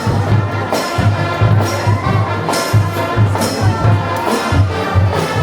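Loud music with a strong, steady bass beat and repeated cymbal-like hits.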